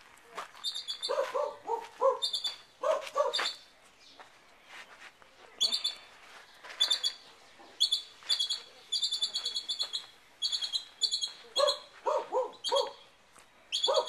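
A dog barking in short runs of three or four, alongside a bird chirping in quick high-pitched series.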